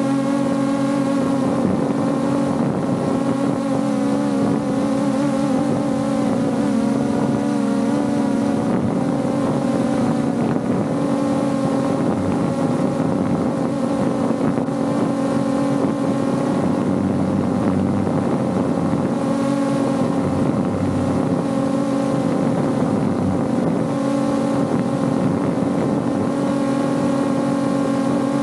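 AE86 Pro Max quadcopter drone's motors and propellers buzzing steadily in flight, heard up close from a camera slung beneath it, the pitch wavering slightly as the motors change speed.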